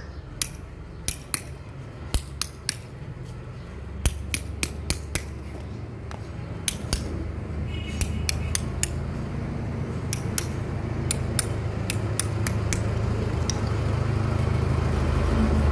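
Sharp metallic taps of a small hammer striking a flat hoof-trimming blade held against a donkey's hoof. The taps come in irregular runs of a few quick strokes as the blade is driven through the hoof wall. A low engine-like hum grows louder toward the end.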